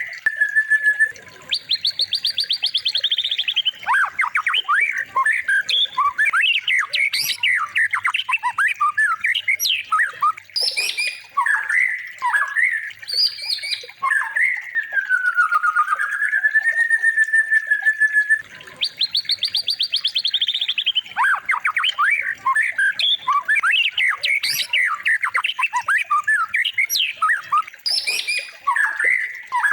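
A songbird's varied song of rapid trills, chattering notes and a long whistle that dips and rises. The phrases repeat as a loop about every 18 seconds.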